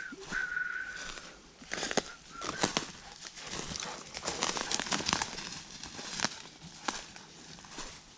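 Irregular crunching and crackling steps through dry leaves and brush on a forest floor, with a short high steady whistle in the first second.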